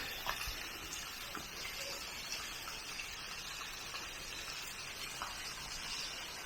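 Steady rush of flowing water, with a few faint clicks and taps over it.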